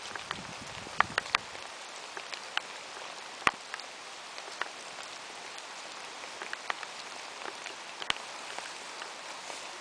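Rain falling into shallow puddles and wet grass: a steady hiss with scattered sharp drip ticks, a few of them much louder than the rest.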